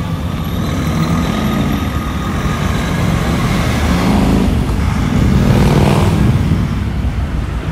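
Street traffic dominated by the low rumble of a heavy vehicle's engine, with the noise swelling to a peak about four to six seconds in as a vehicle passes.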